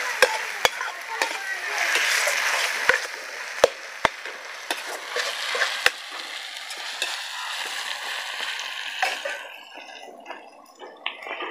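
Onions and tomatoes sizzling as they are sautéed in a metal kadai, a perforated metal skimmer scraping the pan and knocking against it several times. The stirring and sizzling die down near the end.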